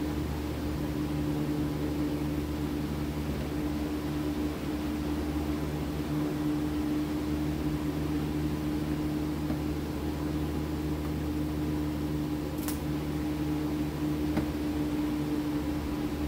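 Steady mechanical hum with a constant low tone, like a motor or fan running, unchanging throughout, with one faint click near the end.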